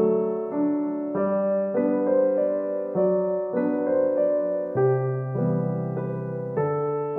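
Background piano music: gentle sustained chords, changing about every half second.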